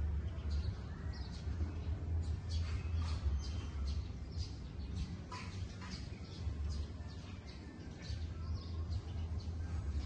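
Small birds chirping in many short, high calls scattered throughout, over a steady low rumble.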